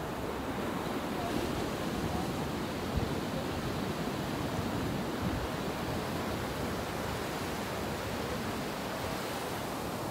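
Small ocean waves breaking and washing up a sandy beach: a steady, even rush of surf.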